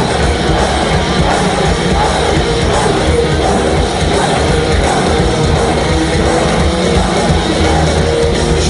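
Loud rock music with singing, playing steadily.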